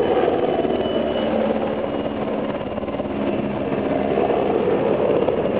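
Helicopter flying low past, its rotor chopping and engine running steadily. The sound eases a little mid-way, then swells again.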